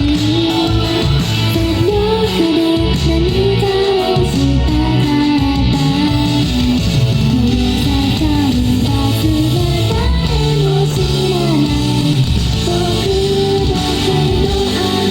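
Idol pop song performed live: a female voice singing the melody over a loud backing track with guitar.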